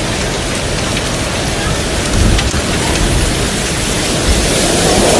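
Torrential wind-driven rain hissing steadily, with strong gusts of wind adding a deep rumble underneath.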